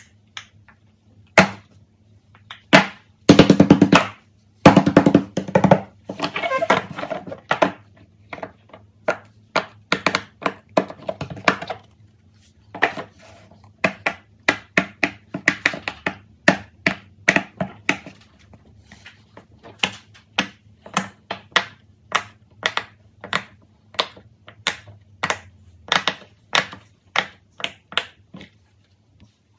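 Fidget toys being handled: a long series of sharp clicks and taps, about one or two a second, with quick rattling runs of many clicks a few seconds in.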